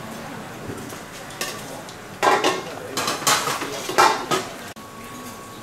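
Metal cookware clanking and scraping: a ladle and pots against a large metal cooking pan, in a run of loud strokes from about two seconds in to about four and a half seconds in.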